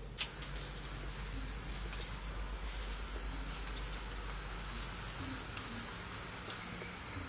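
A steady, high-pitched insect chorus drones without pause. It comes in suddenly, loud, just after the start.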